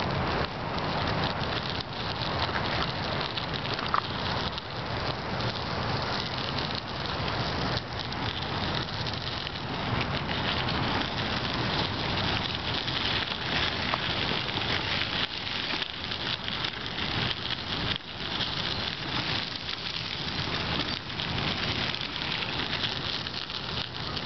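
Bicycle tyres rolling over a crushed-stone gravel path: a steady, gritty crackle of grit and pebbles under the wheels.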